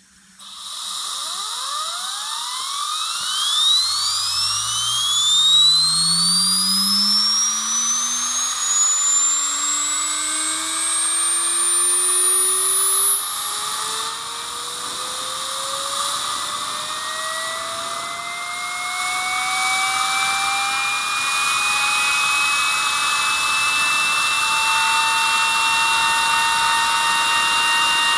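Small model turbine run on compressed air: a hiss of air, then a whine that climbs steadily in pitch as the rotor spins up over about twenty seconds and levels off near the end.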